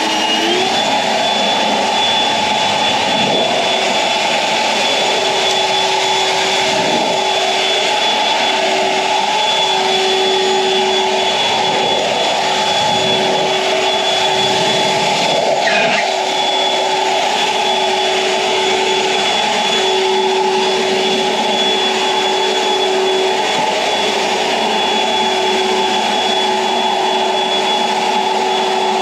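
EGO Power+ 56V LB7650 cordless leaf blower running at high speed: a steady rush of air with a motor and fan whine, rising slightly in pitch as it comes up to speed at the start.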